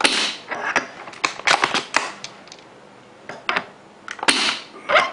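HPA-converted Amoeba Striker bolt-action airsoft sniper rifle, running a Mancraft SDiK kit, fired twice about four seconds apart: each shot is a sharp pop with a short rush of air. Between the shots there is a run of metallic clicks as the bolt is worked.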